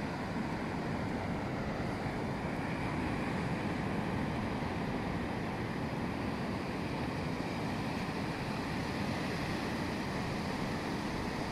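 Steady wash of surf breaking on a shallow sandy beach, with wind rumbling on the microphone.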